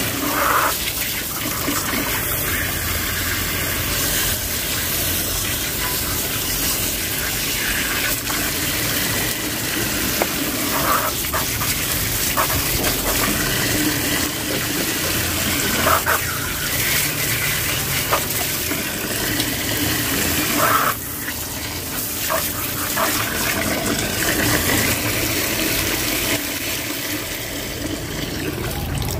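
Water from a garden hose pouring steadily into a plastic tub that is already nearly full, splashing onto the water surface.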